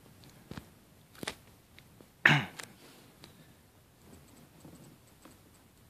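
A few faint, sharp clicks and taps, with one louder short sound about two seconds in.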